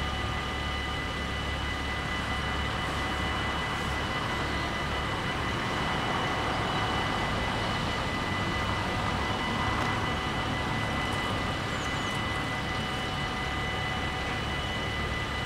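Dutch AHOB level-crossing warning bells ringing without pause, their tones held steady, over a broad rushing noise that swells in the middle and eases off again.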